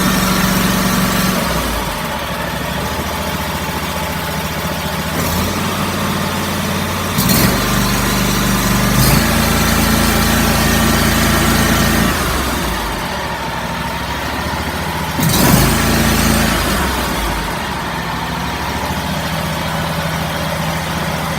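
Hustler Super S zero-turn mower's engine running just after starting, its speed stepping up and down several times as the throttle is worked on the newly replaced throttle cable. Two brief knocks are heard along the way.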